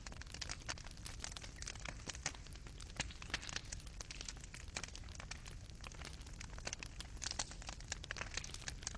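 Fireplace fire crackling, its burning coals giving off a dense run of small sharp pops and snaps over a steady low rumble.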